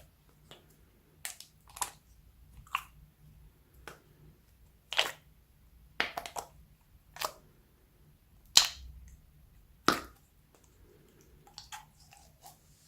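Slime being kneaded and folded by hand, giving sharp, wet pops and clicks as air pockets burst, about one a second at uneven intervals.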